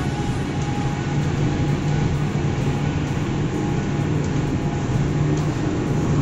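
Steady low drone of a tanker's running machinery, heard inside the ship's accommodation corridor while the vessel is under way.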